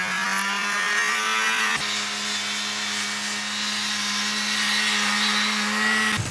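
Snowmobile engine running at steady high revs as the sled drives off through deep powder snow, with one brief click about two seconds in.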